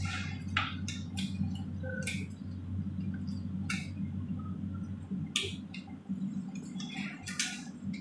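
Rubber examination gloves squeaking and rubbing in short, scattered squeaks as they are pulled on and worked over the fingers, over a steady low hum.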